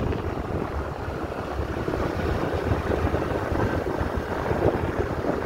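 Steady rumble of a moving car's engine and tyres on a wet road surface, with wind noise on the microphone.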